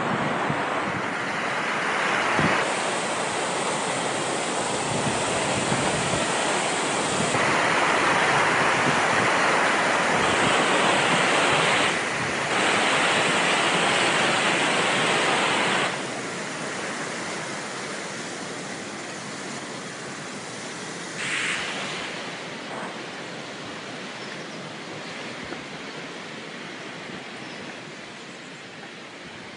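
River water rushing over rapids: a steady hiss of white water, loudest through the first half and dropping away after about sixteen seconds, then fading slowly.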